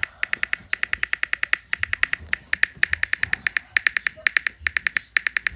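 Rapid clicks of a tablet's on-screen keyboard as a text message is typed, in quick runs of taps with brief pauses between them.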